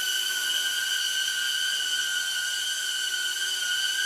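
HoverAir X1 palm-sized camera drone hovering, its propellers giving a steady high-pitched whine.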